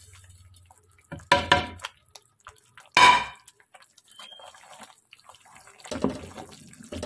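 Two ringing knocks against a metal cooking pot, the second about a second and a half after the first. Near the end, a wooden spoon stirs and scrapes ground flaxseed into the wet, melted jaggery.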